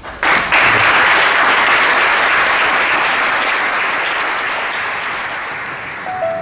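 Audience applauding: a couple of first claps, then a full round that sets in at once and slowly dies away.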